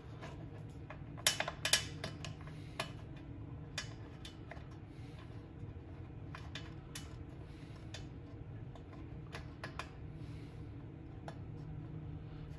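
Light clicks and ticks of hands fitting and handling the plastic engine shroud and its parts on a small snowblower engine during reassembly: a quick cluster of clicks about a second in, then scattered single ticks, over a steady low hum.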